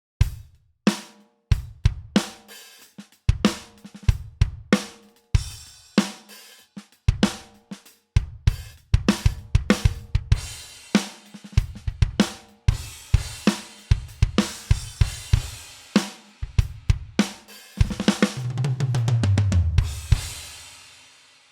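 Sampled acoustic drum kit from a Pearl Mimic Pro drum module, played as a groove of kick, snare, hi-hat and cymbal hits. Near the end comes a rapid fill that falls in pitch, then a cymbal rings out.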